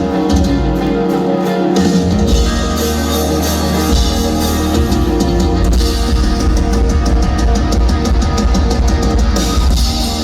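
Rock band playing live, with guitars over a full drum kit. From about six seconds in until shortly before the end, rapid, even cymbal strikes ride on top.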